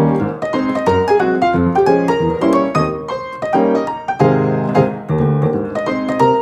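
Background piano music: a flowing run of notes over sustained chords, no singing.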